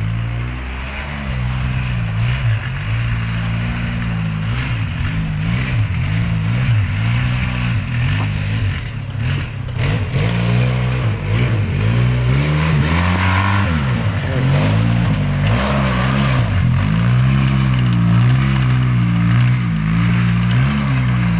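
Four-wheel-drive vehicle's engine revving up and down over and over as it is driven through snow.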